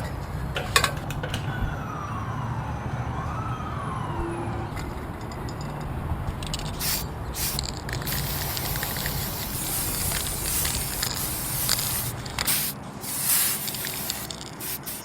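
Aerosol spray paint cans hissing in short bursts, with a longer spray in the middle and the loudest bursts near the end. A distant siren wails up and down in the first few seconds over a low steady rumble.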